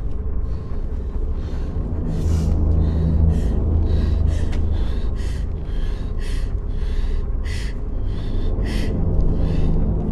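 A woman sobbing in terror with quick, ragged gasping breaths, about two a second, over a low, droning horror score.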